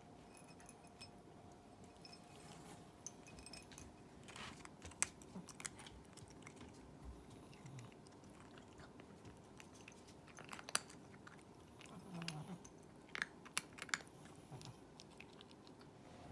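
Siberian cat crunching dry kibble, with sharp irregular crunches as it chews, a few louder bites near the middle and toward the end.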